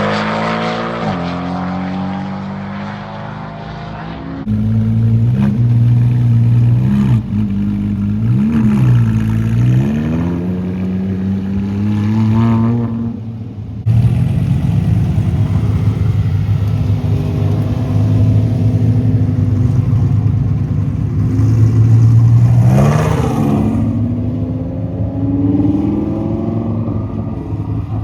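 Performance car engines on a racetrack, accelerating and passing by one after another. Engine pitch falls as a car goes past at the start and again about two-thirds of the way through. The sound changes abruptly several times between clips.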